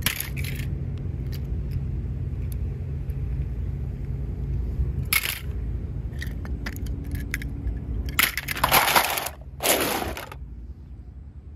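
Small toy cars clattering as they are handled and dropped into a plastic basket among other toy cars. There are scattered clicks, one louder clatter about five seconds in and two longer clatters near the end, over a steady low rumble that fades out after the last clatter.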